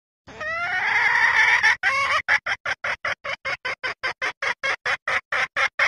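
Junglefowl hen lure call, sold as a female calling for a mate to draw in males: one long drawn-out call rising slightly in pitch, then a rapid run of short clucks, about five a second.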